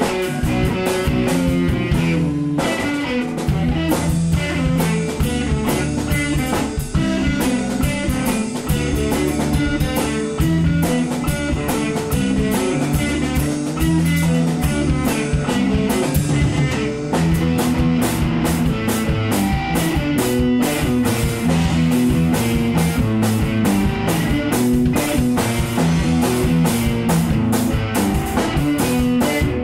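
A rock band playing live without singing: electric guitars over a drum kit, with steady cymbal strokes.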